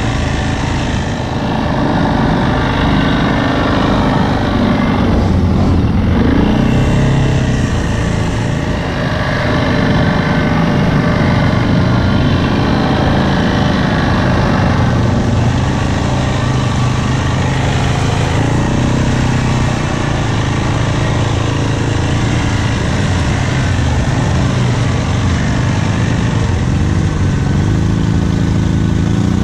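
ATV engine running close by, its pitch rising and falling repeatedly with the throttle as it rides.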